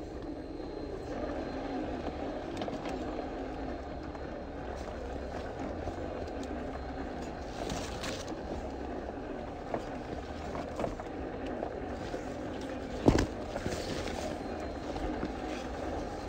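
Small RC crawler's brushed electric motor and gearbox running steadily as it drives along a dirt trail, with a few light clicks and one sharp knock about thirteen seconds in.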